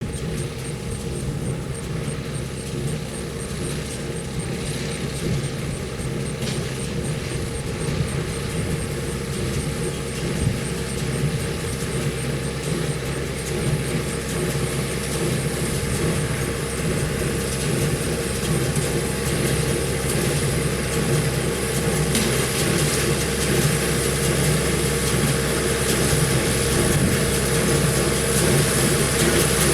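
John Deere 6300 diesel tractor running steadily and driving a John Deere 328 small square baler, a continuous mechanical drone that grows gradually louder.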